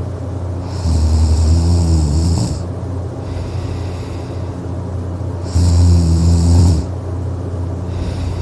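A person snoring: two loud snores, the first about a second and a half long and the second about a second, some four and a half seconds apart.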